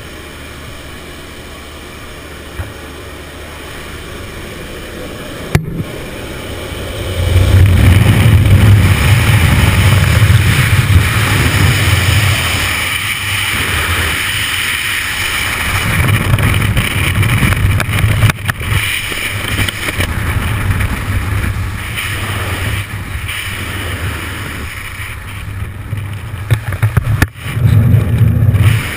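Steady drone of the jump plane heard in the cabin by the open door for the first few seconds. Then a sharp click, and from about seven seconds on, loud wind rushing and buffeting the helmet camera's microphone in freefall. It swells and dips, with a brief dropout near the end.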